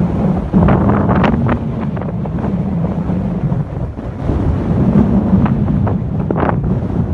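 Strong wind buffeting the microphone: a loud, continuous low rumble broken by repeated sharp gusts.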